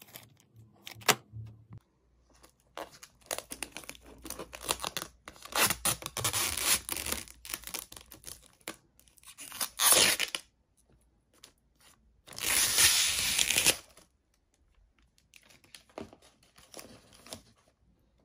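Clear plastic packaging bag crinkling and tearing as it is pulled off a new sat-nav unit: a run of short, irregular rustles, with a sharp one about ten seconds in and the longest, loudest tear about twelve to fourteen seconds in.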